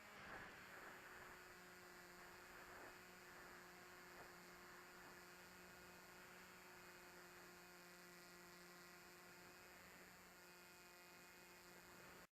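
Near silence: a faint steady electrical hum with a few steady tones, which cuts off abruptly at the very end.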